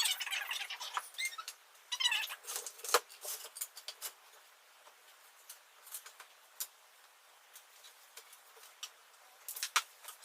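Clothes being handled: fabric rustling in irregular bursts, loudest in the first three seconds and again near the end, with light clicks and taps in between.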